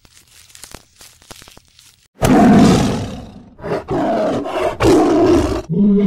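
Tiger roaring: three long roars, the first starting suddenly about two seconds in, after faint scattered clicks.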